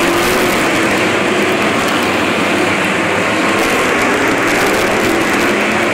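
A pack of racing stock cars running at speed, their engines making a loud, continuous blended drone with pitches rising and falling as cars pass.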